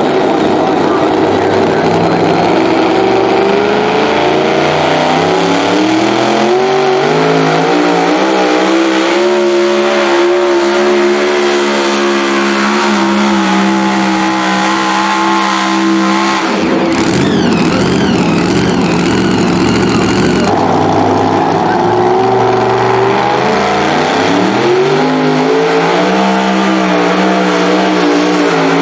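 Supercharged engine of a super modified two-wheel-drive pulling truck under full load as it pulls the sled, its pitch climbing over several seconds and then holding. About sixteen seconds in the engine note gives way to a loud rushing noise. A few seconds later a second supercharged pulling truck's engine is heard, revving up and climbing again.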